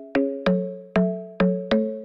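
Background music: a light melody of struck notes, each ringing out and fading, about two or three notes a second.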